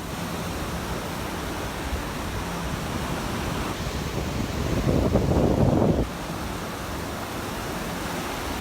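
Gulf surf washing ashore, with wind buffeting a phone microphone that is covered only by a Band-Aid. A louder rush of wind on the mic comes about five seconds in and cuts off suddenly about a second later.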